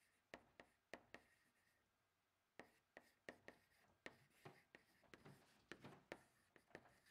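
Chalk tapping and scratching on a chalkboard as words are written: a string of faint, short taps, with a pause about two seconds in and a quicker run of strokes after it.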